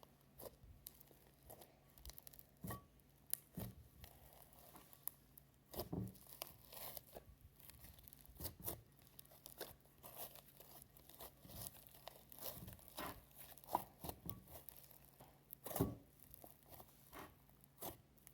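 Slime being kneaded and folded by hand, giving faint, scattered small pops, clicks and crackles at irregular moments.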